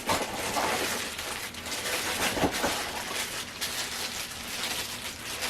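Rustling and crinkling of packaging as items are handled, with scattered small clicks and knocks.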